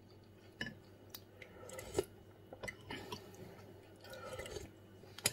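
A person eating beef soup: quiet chewing, a few light clicks of metal cutlery against the porcelain tureen, and a soft slurp of broth from a spoon about four seconds in.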